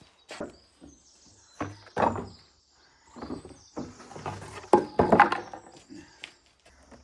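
A series of irregular knocks and thuds, loudest about two seconds in and again about five seconds in.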